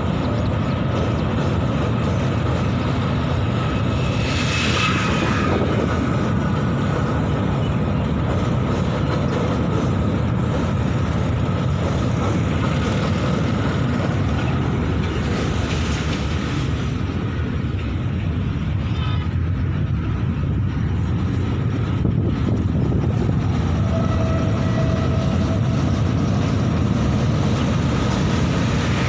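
Long freight train's covered wagons rolling past, a steady rumble of steel wheels on the rails with a faint steady high tone running through it.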